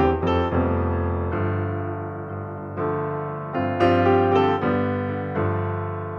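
Background piano music: notes and chords struck every second or so, each fading away before the next.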